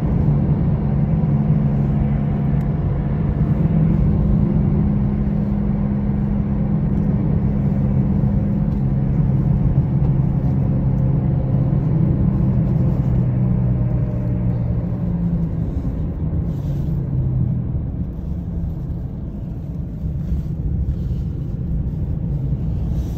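A car driving along a country road, heard from inside the cabin: steady tyre and road rumble with a low engine hum. The hum fades out about two-thirds of the way through and the noise eases briefly.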